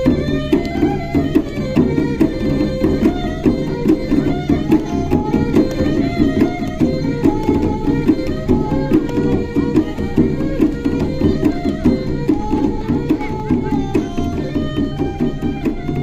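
Background music: a melody line in stepping notes over a fast, steady drum-like percussion beat.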